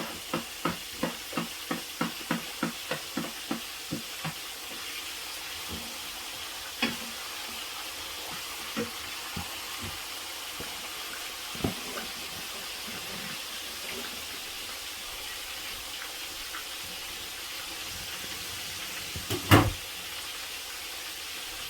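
Knife chopping on a cutting board, a quick regular run of about three strokes a second for the first four seconds, then a few scattered knocks and one loud thump near the end, over a steady frying sizzle.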